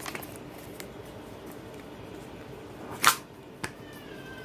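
Handling noise from the pistol and its case: a few faint clicks, then a loud short swish about three seconds in followed by a small click. Near the end comes a faint, thin cat meow.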